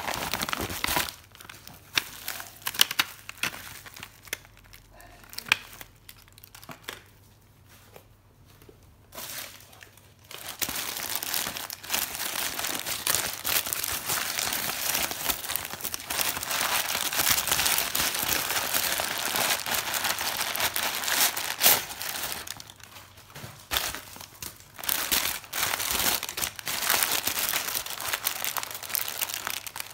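Packaging being handled and crinkled during an unboxing. There are scattered crackles at first, then about ten seconds of steady, dense crinkling, then scattered crackles again.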